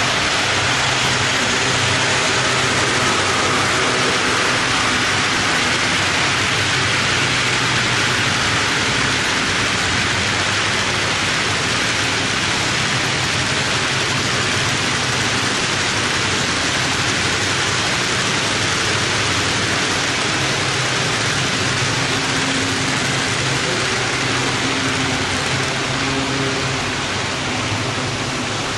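HO-scale model freight train of covered hoppers rolling past on the track: a steady rushing noise from the wheels with a low hum underneath, easing slightly near the end as the caboose goes by.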